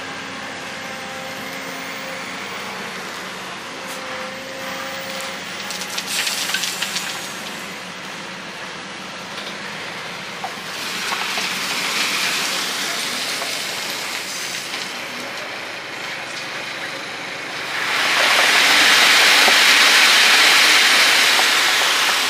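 Excavator running at a work site, a steady engine hum overlaid by swells of loud rushing hiss, the loudest near the end.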